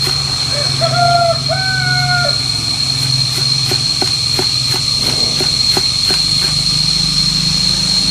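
Knife chopping vegetables on a cutting board, a run of quick chops about three a second. A chicken calls twice about a second in, over a steady high whine and a low hum.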